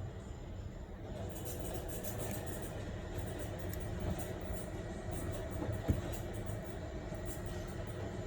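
Faint scattered clicks and ticks of small parts and tools being handled during a phone repair, over a steady low rumble of background noise, with one sharper click about six seconds in.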